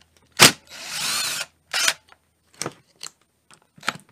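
Cordless drill run twice in short bursts, each starting with a sharp clack and whirring for under a second with its pitch rising and falling, and a few light metal clicks between.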